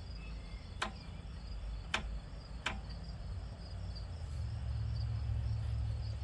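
Crickets chirping steadily, with three sharp clicks about a second apart early on the track, and a low rumble that swells over the last two seconds.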